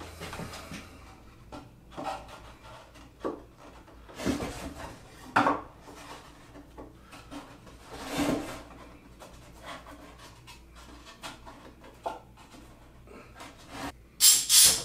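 A wooden trim piece being handled and pressed onto a pine cabinet: scattered light knocks and rubbing of wood on wood. Near the end come louder clattering bursts as bar clamps are set onto the trim.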